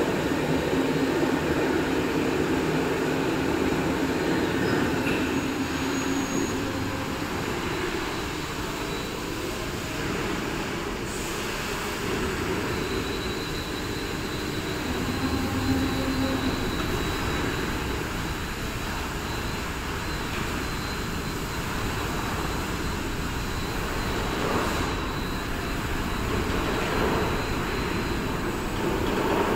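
Electric overhead travelling crane running: a steady mechanical rumble, with a low hum in the first few seconds and a faint high whine for a few seconds in the middle.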